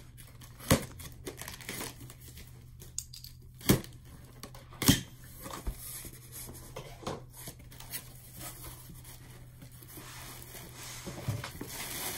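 A cardboard box being opened: packing tape slit with a box cutter and torn, the flaps pulled apart, with three loud sharp cracks in the first five seconds. Near the end, plastic air-pillow packing crinkles as it is rummaged through.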